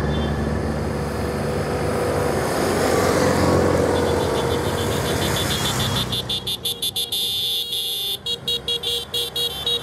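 A column of motorcycles riding past, their engines running. From about six seconds in, horns toot over and over in short blasts.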